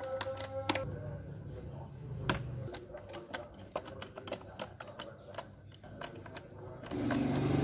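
Scattered light clicks and knocks, then a small electric motor starts running steadily near the end.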